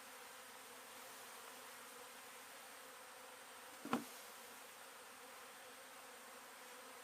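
Faint, steady buzzing of a honeybee colony, with one short louder sound about four seconds in.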